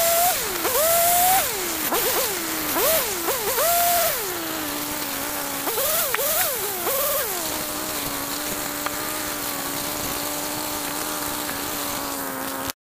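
Small engine revved up and down in quick blips, then settling into a steady idle about four seconds in; the sound cuts off abruptly near the end.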